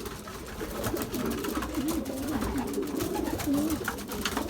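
Several young racing pigeons, cockbirds, cooing in the loft: many low, wavering coos overlapping, with scattered light clicks among them.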